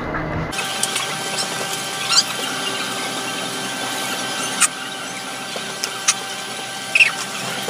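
Small clicks and taps of a Yamaha Mio Sporty scooter's carburetor parts being handled over a plastic basin, over a steady background hiss, with a few short high squeaks.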